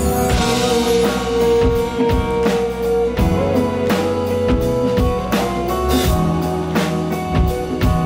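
Live band music: a drum kit beat with electric guitar, and a long held note for the first three seconds or so.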